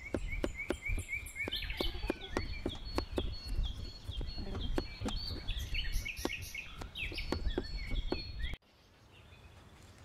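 Knife slicing a peeled cucumber on a plastic cutting board, a sharp tap about twice a second as the blade meets the board, with birds chirping. The tapping and chirps stop abruptly near the end.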